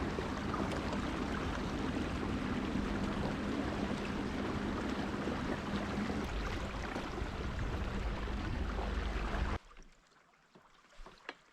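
Steady rushing water noise, cutting off abruptly about nine and a half seconds in.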